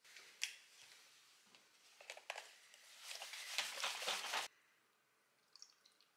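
A carton of oat milk shaken hard for about a second and a half, the milk sloshing inside, stopping abruptly. Before it come a few clicks and knocks as the carton is handled, and a few faint ticks follow near the end.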